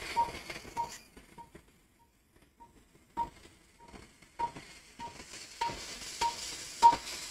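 Short electronic beep from the operating-room equipment, repeating evenly about every 0.6 s, fainter for a second or two then clear again.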